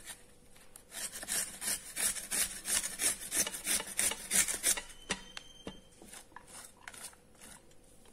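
Raw carrot being grated by hand on a metal grater: a quick run of rasping strokes, about four a second, thinning to a few scattered scrapes after about five seconds.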